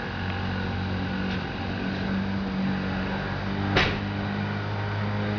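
Steady rush of a severe storm's rain and wind over a low steady hum, with one short, sharp burst of noise near the four-second mark.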